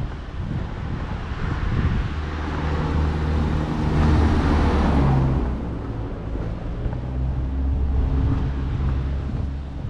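A van driving up the road and passing close by, its engine hum and tyre noise swelling to loudest about four to five seconds in and then fading away.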